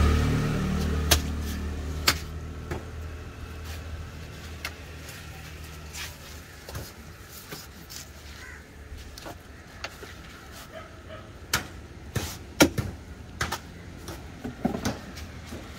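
Sharp knocks of a cleaver chopping through a large fish into a wooden stump block: single blows about one and two seconds in, then a quick run of four late on, with small knife ticks between. A vehicle's low rumble fades out over the first few seconds.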